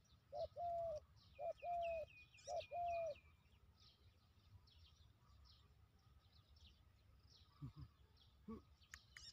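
A dove cooing: three calls in the first three seconds, each a short note followed by a longer one at the same low pitch, evenly spaced. Small birds chirp faintly throughout.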